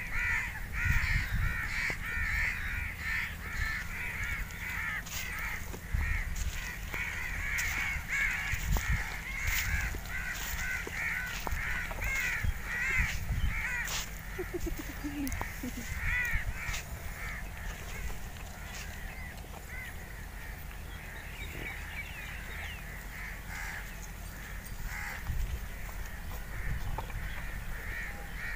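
Many birds calling at once in a dense, repeating chorus of short cries, busiest for the first dozen seconds and thinning out after about seventeen seconds, over a low rumble.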